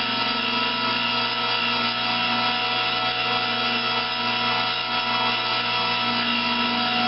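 Sioux model 2001 valve face grinding machine running with its stone grinding the 45-degree face of a cast-iron valve head: a steady motor hum and whine over an even grinding hiss. It is a clean-up grind, taking off the last high spot so the stone contacts the face all the way round.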